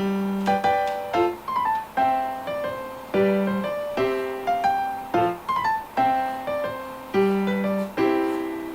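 Background music: a gentle piano melody, with single notes struck one after another and left to fade.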